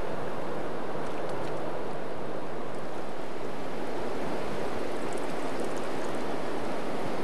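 Steady rush of a river's rapids flowing over rocks.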